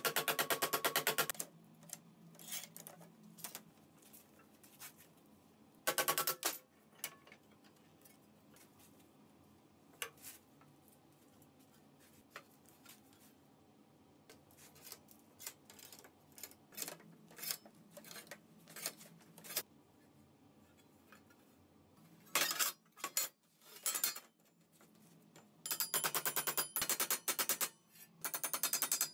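Rapid hammer taps on stainless steel sheet against a steel welding table, in bursts: one at the start, another about six seconds in, a short one about twenty-two seconds in and a longer run near the end. Between them, scattered single clinks of sheet metal being handled on the table.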